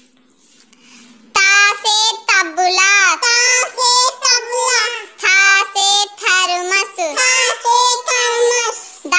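A child's voice singing Hindi alphabet lines in short phrases with gliding pitch, with no clear instrumental backing. The singing starts about a second and a half in, after a quiet start with only a faint low hum.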